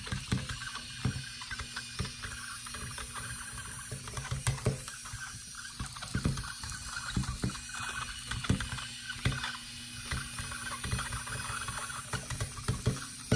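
Itty Bitty Buggy robot's small geared wheel motors whirring steadily as it steers along a drawn line in line-tracing mode, with irregular clicks and ticks throughout.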